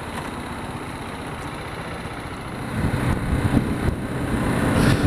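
BMW G 310 GS's single-cylinder engine running under the rider at low speed, with road noise. About two and a half seconds in it grows louder as the bike pulls away and accelerates.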